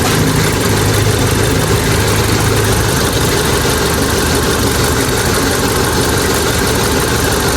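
Mitsubishi Dion's GDI engine idling roughly with a bad misfire; two cylinders have been found misfiring. A low hum in the engine sound drops away about three seconds in.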